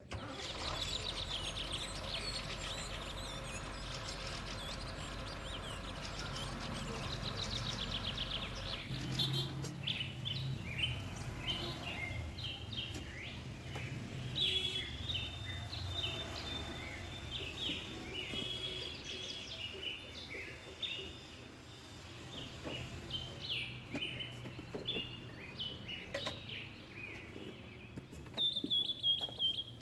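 Birds chirping repeatedly. A steady, multi-toned hum runs under them for the first nine seconds or so, and a few faint clicks come through.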